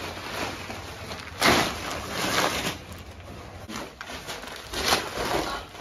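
Plastic sacks of rice being handled and lifted: several short bursts of rustling and bumping, the loudest about a second and a half in.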